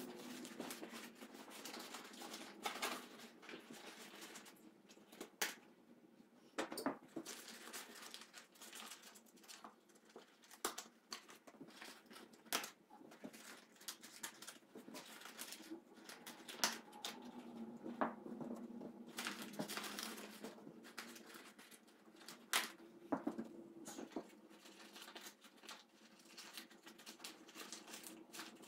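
Crumpled paper rustling and crackling as it is handled and pressed over a chicken-wire frame, with scattered sharper clicks.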